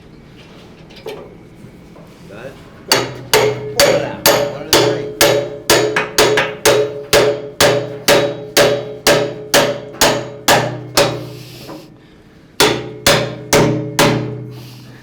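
Hammer blows on steel, each one ringing, in a steady run of about three a second. After a short pause, five more blows follow near the end.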